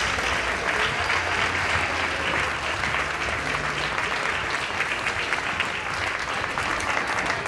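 Audience applauding: many hands clapping in a steady, dense patter that eases slightly toward the end.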